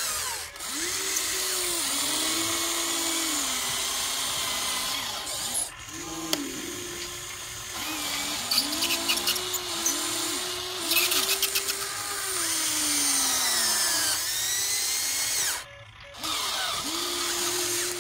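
Small electric motors of a Huina remote-control model excavator whining as the boom, arm and bucket move, the pitch rising and falling each time a motor starts and stops. Rapid clicking comes twice around the middle.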